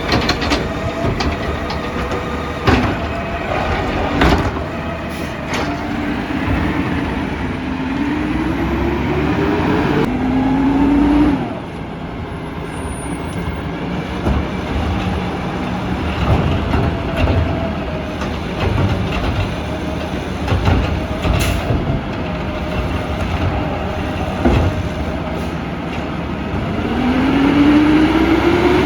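Peterbilt 320 garbage truck with a McNeilus ZR automated side-loader body at work, its engine running steadily. The engine revs up twice, at about a third of the way in and again near the end, and there are several sharp metal knocks and bangs.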